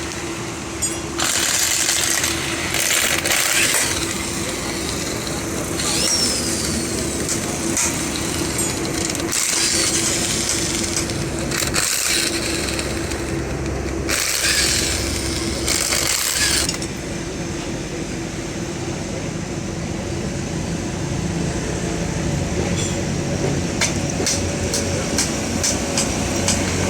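Ashok Leyland truck running, with a steady whine and repeated bursts of hiss, each about a second long.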